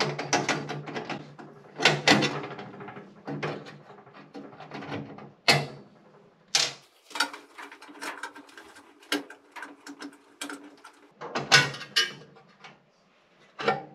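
Irregular clicks, rattles and knocks of metal fasteners and parts being unscrewed with a nut driver and handled inside a sheet-metal bill changer cabinet.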